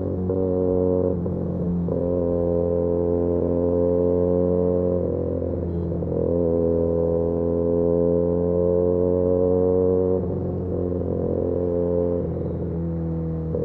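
Benelli 302S parallel-twin engine through an Austin Racing titanium aftermarket exhaust, running at a steady cruise with a droning exhaust note. Several times the note briefly dips and wavers, then steadies again as the throttle comes back.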